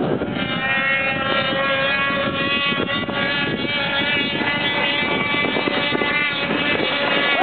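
Engines of 600 cc racing snowmobiles at full throttle in a drag race: a steady whine of several tones that holds its pitch.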